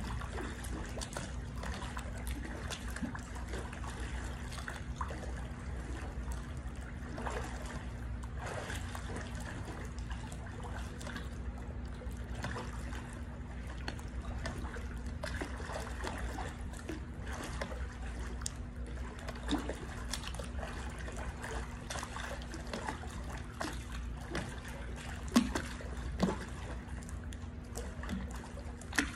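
Pool water sloshing and trickling steadily, stirred by a person doing leg exercise reps in it, over a steady low hum. Two sharper splashes come near the end.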